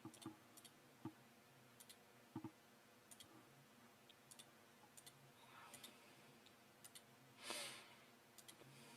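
Faint, scattered clicks of a computer mouse, single or in quick pairs about once a second, during on-screen editing. A short breath-like hiss comes about seven and a half seconds in.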